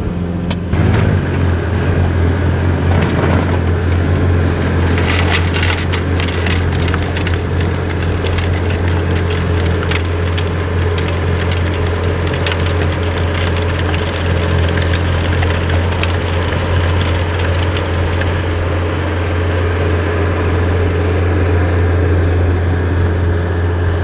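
Bobcat skid-steer loader's diesel engine running with a steady low drone while its snowblower attachment throws a drift, with dense crackling of thrown snow and ice, thickest from about five to eighteen seconds in.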